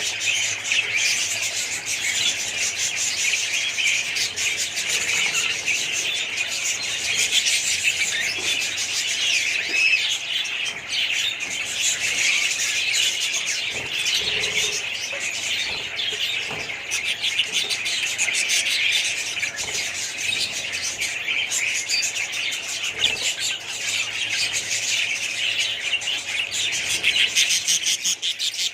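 A colony of budgerigars chirping and chattering all together, a dense, unbroken mass of overlapping high calls.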